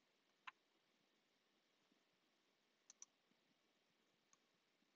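Faint clicks of a computer mouse against near silence: one about half a second in, a quick double click about three seconds in, and a fainter single click near the end.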